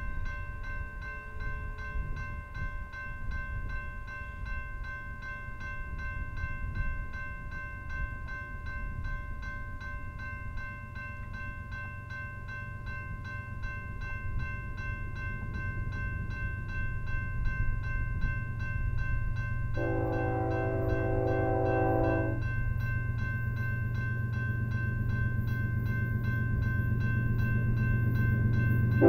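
Railroad grade crossing bell ringing rapidly and steadily, over the low rumble of an approaching freight train that slowly grows louder. About two-thirds of the way through, the locomotive's horn sounds one blast of about two seconds.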